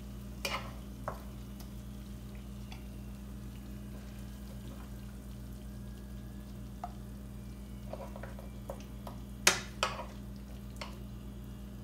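A metal spoon clinking and scraping against a plate and pan while chicken pieces in gravy are served, a few sharp clinks with the loudest about nine and a half seconds in, over a steady low hum.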